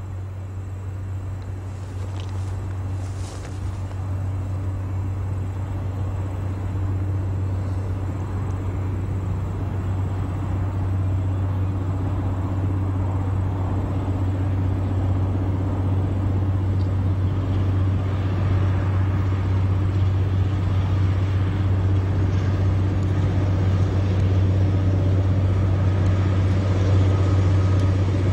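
Diesel-electric freight locomotive approaching, its engine a steady low drone that grows steadily louder as the train draws near.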